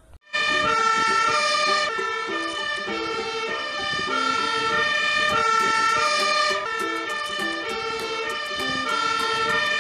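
Fire engine's two-tone siren, sounding steadily and alternating between high and low notes.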